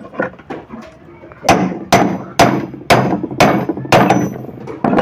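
Steel hammer knocking a tight first-speed gear down onto a tractor gearbox main shaft: about seven metal-on-metal blows, roughly two a second, starting about a second and a half in, each with a short ring. The gear is a bit jammed on the shaft because it has no bush.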